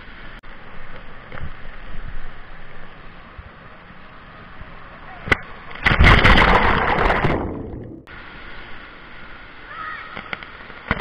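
Running water in a water-park play structure, then about six seconds in a loud splash of water over the action camera that lasts about two seconds as it hits the water at the bottom of the slide.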